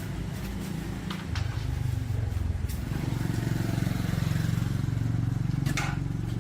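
A motor running with a fine, rapid pulsing hum that grows louder about a second and a half in and again around three seconds, with a few faint clicks.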